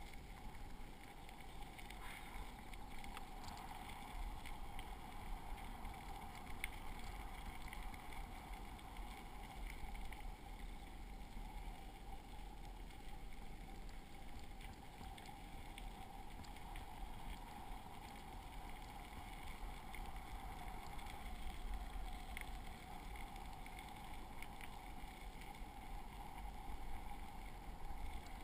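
Bicycle tyres rolling over a gravel trail, a steady rolling rumble with a few faint small clicks scattered through it.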